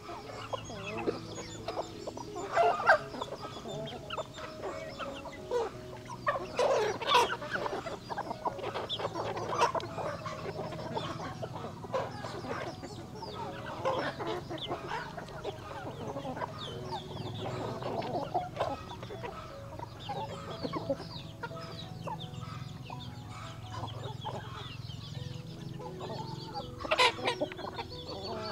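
Chickens clucking and calling, many short calls overlapping, with a few louder calls and a steady low hum underneath.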